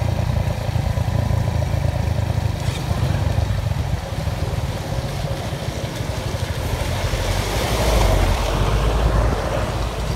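Motor traffic passing close by: small motorcycle and scooter engines running, with a deeper, louder engine rumble from about seven seconds in as a small truck goes past.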